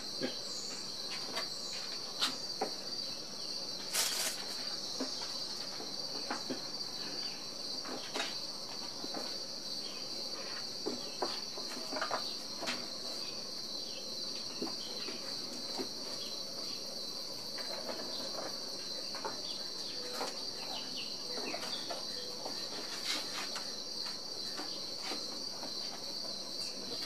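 A steady, high-pitched chorus of insects chirring outdoors, with scattered light clicks and taps, the clearest about four seconds in.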